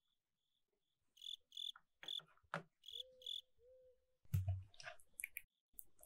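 Crickets chirping in a run of short high chirps, louder from about a second in, with a low call twice near the middle. About four seconds in comes a soft thud with wet handling sounds as a sea cucumber is set down on a wooden cutting board.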